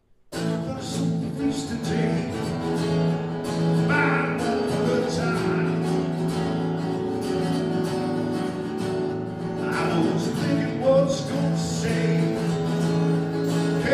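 Acoustic guitars playing a song, starting abruptly just after the start, with a man's singing voice at times.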